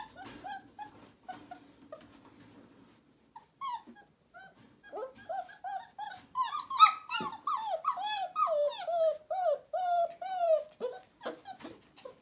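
Four-week-old puppies whimpering and whining in short cries that fall in pitch. The cries are soft at first, then come louder and in quick succession from about five seconds in.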